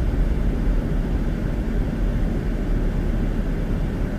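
Steady road and engine noise of a moving car heard from inside the cabin: an even low rumble with no distinct events.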